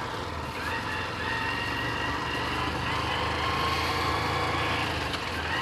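Motorbike engine running under way on a dirt road, its pitch rising slightly about half a second in and then holding steady.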